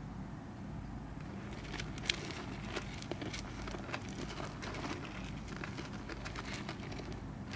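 Soil crackling and scratching in many small irregular clicks as a common rain frog burrows into it, starting about a second and a half in, over a low steady hum.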